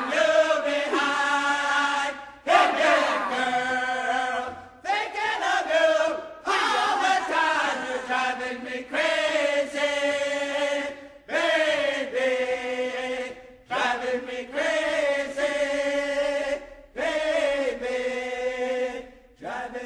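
Powwow-style group singing: voices chanting in short phrases that often fall in pitch, with brief breaks between them.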